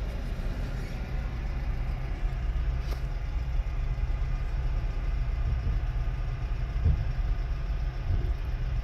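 An engine idling steadily, a low even rumble, with a single thump about seven seconds in.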